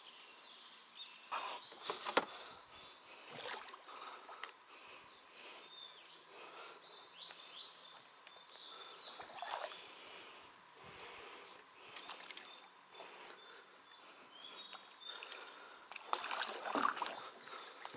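Outdoor ambience by the water with a small bird chirping, broken by scattered knocks, clicks and rustles of gear being handled in a small fishing boat; the loudest come about two seconds in and again near the end.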